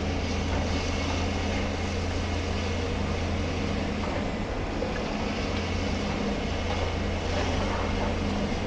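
Heavy demolition rig's diesel engine running steadily, a constant low hum with no breaks.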